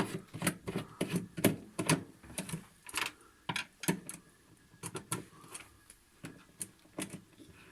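A screwdriver turning out a screw from a refrigerator's plastic panel: a run of irregular sharp clicks, about two to three a second.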